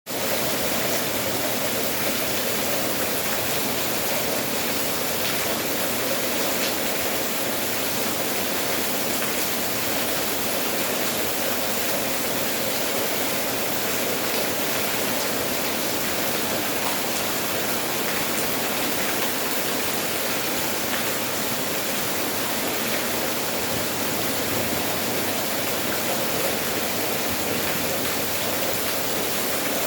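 Steady rain falling, a continuous even rushing hiss with a few faint drop ticks.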